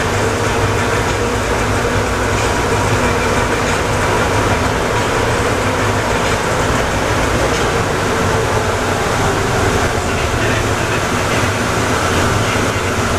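Atlanta airport Plane Train, a rubber-tyred automated people mover, running steadily: a continuous low rumble with a faint steady whine.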